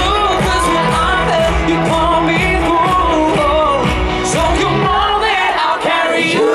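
Male pop vocal group singing live over a dance-pop backing with a steady bass and drum beat.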